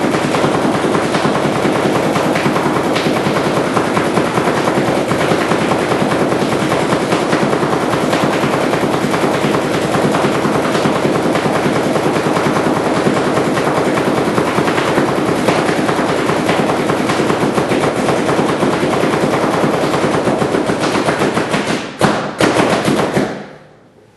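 Empire Magna mechanical-blowback paintball marker firing reballs in a rapid, continuous string of shots. Near the end the firing breaks into a few separate shots and then stops suddenly.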